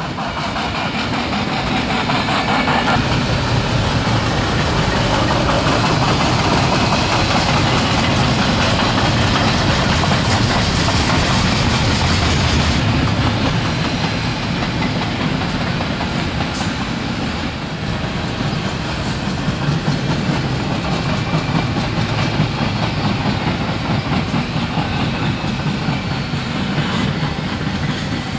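BNSF intermodal freight train rolling past, a steady noise of wheels on rails from the passing cars, somewhat louder in the first half.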